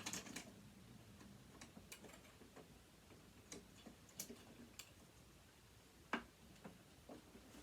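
Faint, irregular clicks and taps of a screwdriver and small metal parts while a sewing machine is being dismantled, the clearest about six seconds in.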